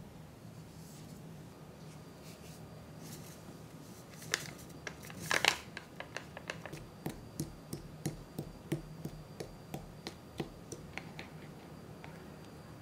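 A foil packet of candy powder crinkles loudly about four to five seconds in as it is emptied into a small ceramic bowl of water, then a plastic spoon stirs the mixture, clicking against the bowl about three times a second.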